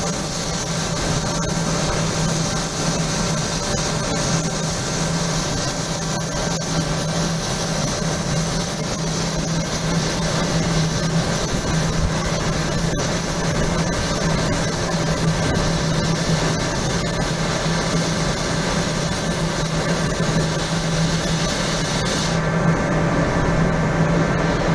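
Machinery running continuously: a steady low hum under a dense, even hiss, with no pause or change.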